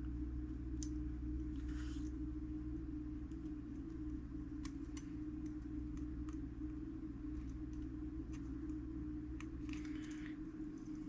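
Scattered small clicks and short scraping rustles of the broken, tangled fusee line and small clock parts being handled, over a steady low hum.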